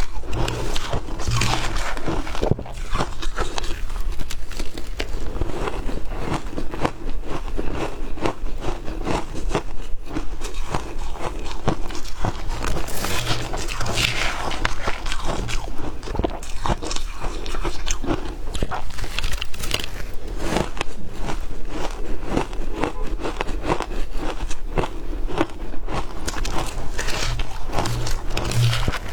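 Ice being bitten and crunched close to the microphone: a continuous run of crisp cracks and crackles as pieces are chewed.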